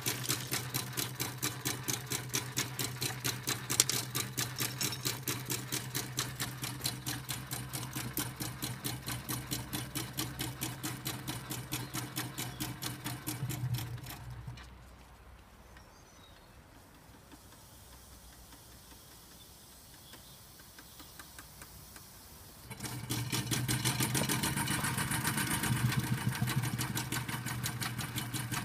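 Small model steam engine of a home-built Hornsby chain crawler running with an even clatter of about five beats a second over a low hum. It stops about halfway through and starts again a few seconds before the end, a little louder.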